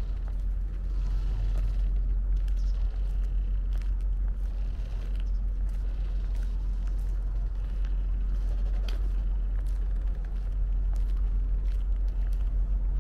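Low, steady rumble of wind on the microphone, with faint scattered clicks.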